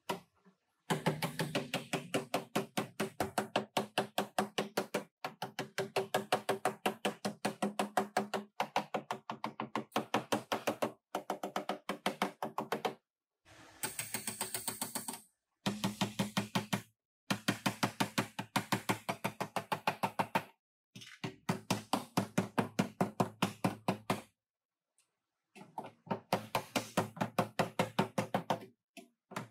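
Hammer striking the car's sheet-metal body in rapid, even blows, several a second, in runs of a few seconds with short pauses between them; the panel rings under the blows. A brief hiss sounds near the middle.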